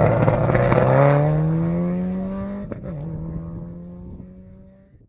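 Rally car accelerating hard away on a gravel stage, with a rush of tyre noise over the first second. The engine note climbs, drops with an upshift a little under three seconds in, then climbs again as it fades into the distance.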